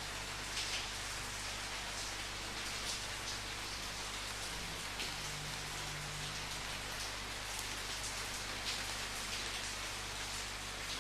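Steady rain falling, with the patter of individual drops striking a surface scattered through it and a faint low hum beneath.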